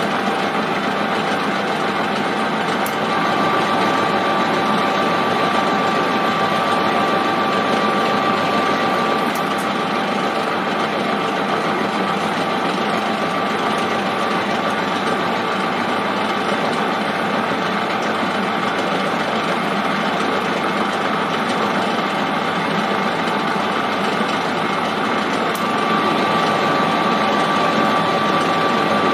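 Manual metal lathe switched on and running under power, a steady mechanical whir with a faint constant whine. A single-point tool makes a threading pass, cutting a left-hand thread on a spindle.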